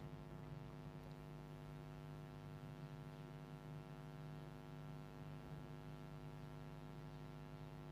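Faint, steady electrical mains hum: a constant buzz made of several steady tones, with no clicks or cuts heard.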